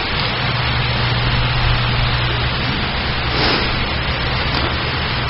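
Steady hiss with a low hum underneath: the background noise of the sermon recording, with no speech.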